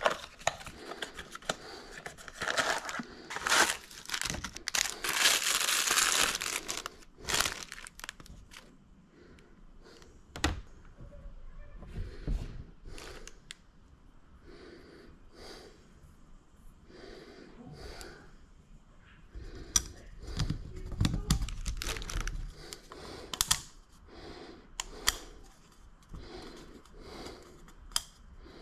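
Clear plastic packaging crinkling and rustling as a new cartridge oil filter and its O-rings are unwrapped. The crinkling is loudest and densest in the first several seconds, then gives way to scattered clicks and light rustles as the plastic filter housing cap and rubber O-rings are handled.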